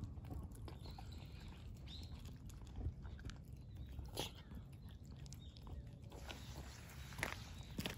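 Two cats eating wet food and dry kibble from bowls: soft chewing and crunching with scattered small clicks, over a low steady rumble.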